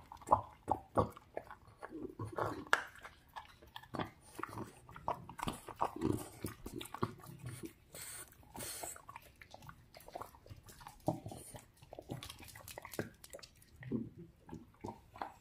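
A dog chewing and biting at a chunk of raw duck, in irregular clicks and crunches of teeth on meat.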